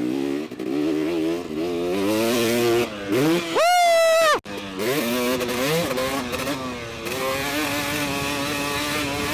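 Motocross dirt bike engine running under changing throttle, its pitch rising and falling, with one sharp rev to a high pitch about three and a half seconds in that is held for nearly a second and then cuts off abruptly.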